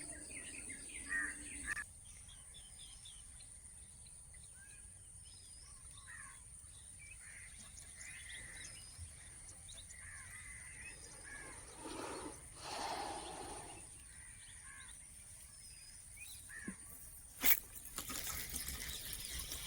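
Quiet outdoor ambience: faint scattered bird chirps over a steady high-pitched hum. A brief swell of rustling noise comes about twelve seconds in, and a single sharp click near the end.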